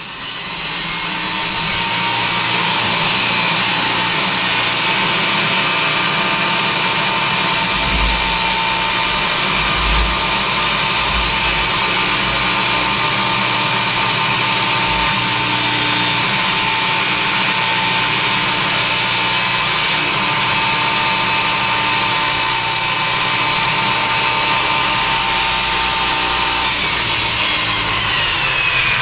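Power saw mounted under a makeshift plywood saw table, spinning up at the start and then running steadily as a large plywood sheet is pushed through it and ripped.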